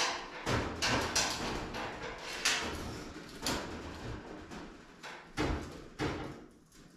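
Irregular knocks and clunks of parts being handled during shop work on a truck frame. The knocks come every half second or so, then thin out and fade near the end.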